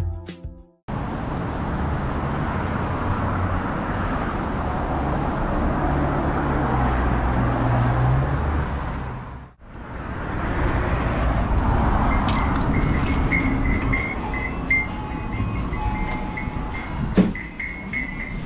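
City street noise with a steady low rumble, picked up on a walking action camera. After a cut the rumble goes on, joined by a row of short, evenly spaced high beeps and a single sharp knock near the end.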